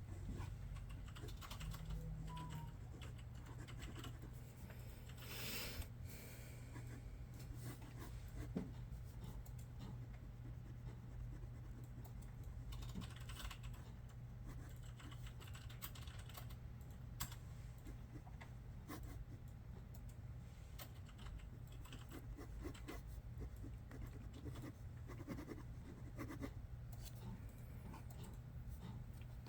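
Computer keyboard typing: irregular key clicks throughout, over a steady low hum.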